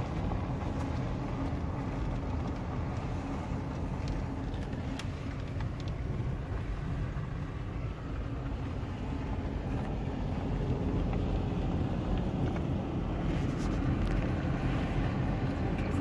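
Car driving on a dirt and gravel road, heard from inside the cabin: steady engine and tyre rumble that grows a little louder partway through. A few faint clicks come through, more of them near the end.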